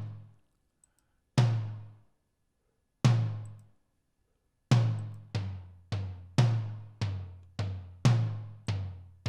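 Tom drum hits from replacement drum samples played back, each a pitched low thud that dies away quickly because the samples' sustain and release have been cut short to tighten the ring. Three hits come spaced well apart, then from about halfway a steady run of roughly two hits a second.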